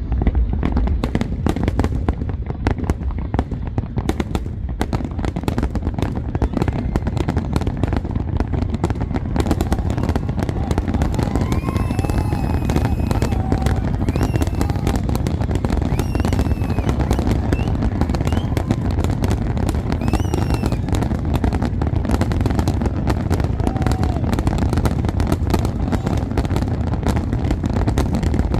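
Fireworks going off in a dense, continuous barrage of rapid bangs and crackles over a low rumble.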